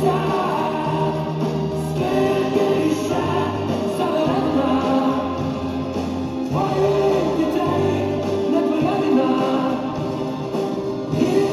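Music with choir-like singing over held bass notes, running steadily.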